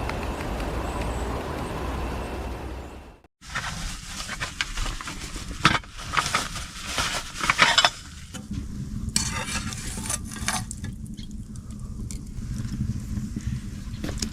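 Metal cookware handled during camp cooking: a utensil clattering and scraping in a pan in several short spells, with a steady low background. The sound cuts out briefly about three seconds in.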